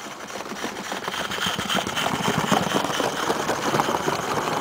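A small 16mm-scale live-steam garden-railway locomotive and its coaches passing close by: rapid chuffing and clatter of wheels on the track, with a hiss of steam, growing louder over the first two seconds as the train nears and then holding steady.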